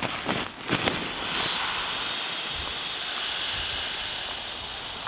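Air hissing steadily through the valve of an inflatable sleeping mat as a pump sack is pressed to blow it up, with a thin high whistle in the hiss. Fabric rustles and a knock or two come in the first second, before the hiss starts.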